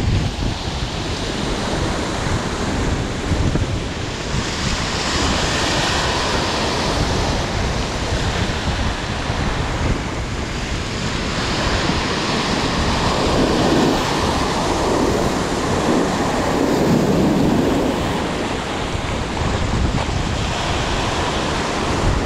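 Surf breaking and washing over shoreline rocks, with strong wind buffeting the microphone. The surge swells louder twice, once about a quarter of the way in and again past the middle.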